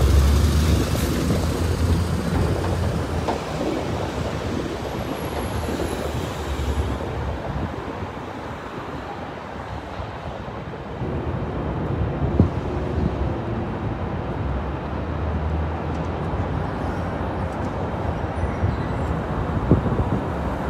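Street traffic: a truck's engine rumbles close by at the start and fades away, then a steady traffic hum, with another vehicle passing about halfway through. A couple of short sharp knocks come in the second half.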